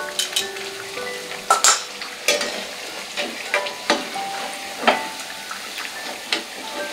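Chakli deep-frying in hot oil with a steady sizzle, while a perforated steel skimmer turns and lifts them, giving a series of sharp clinks and scrapes against the pan and the crisp spirals.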